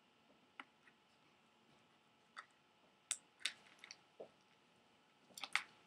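Scattered small sharp clicks and taps of plastic Lego pieces being handled and pressed together, with a louder pair of clicks near the end.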